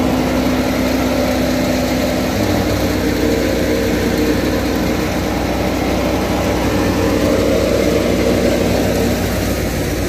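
National wheat thresher running steadily under load, a loud continuous machine drone, while sheaves of wheat are fed into it by hand.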